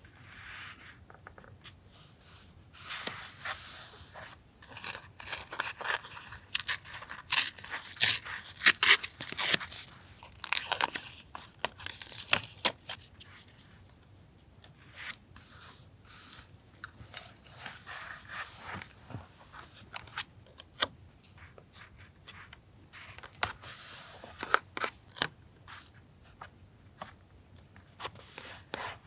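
Paper being torn and handled in irregular bursts, with many short crackles.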